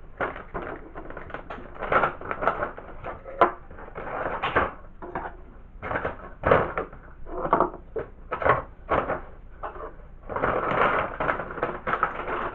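Crinkling and rustling of a plastic packet and stiff dried pig's ear dog chews as they are gathered up and put back into it: a run of irregular crackles, densest near the end.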